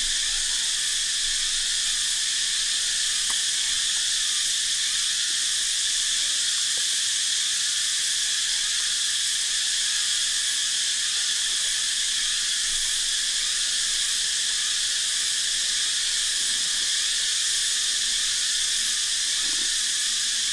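Dense, steady, high-pitched insect chorus with many small chirps mixed in, running without a break.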